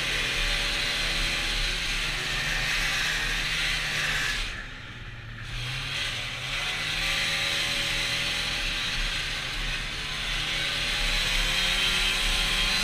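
A 1992 Polaris Indy Lite 340 snowmobile's two-stroke engine running under way, its pitch rising and falling with the throttle, over a steady hiss. About four and a half seconds in it drops off for a second, then picks up again.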